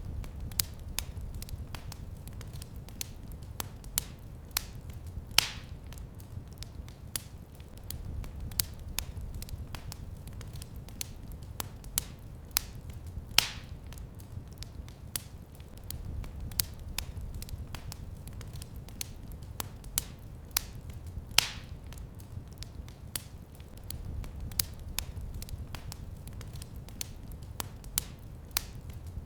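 Wood fire crackling in a fireplace: a steady low rumble of flames under many small, quick crackles, with a louder sharp pop about every eight seconds.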